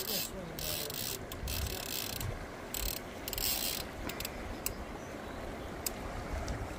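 Fishing reel ratcheting irregularly under the pull of a hooked sturgeon, over a steady wash of river water.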